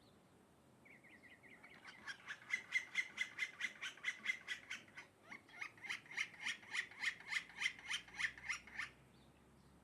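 A bird calling a long, rapid series of harsh repeated notes, about four a second, that starts faintly, grows loud about two seconds in and stops about a second before the end.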